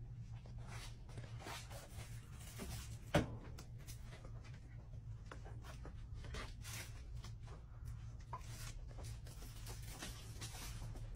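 Light handling noises, small rustles and taps, over a steady low hum, with one sharp knock about three seconds in.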